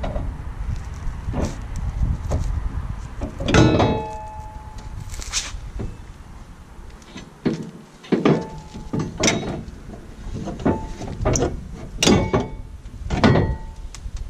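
Steel tow-hitch receiver knocking and clanking against the X5's rear frame as it is lifted and fitted into place: about a dozen irregular knocks, several with a short metallic ring.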